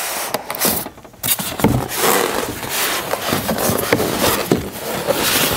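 Cardboard box and styrofoam packing rubbing and scraping with small knocks as a boxed espresso machine is worked up out of its carton, with a brief lull about a second in.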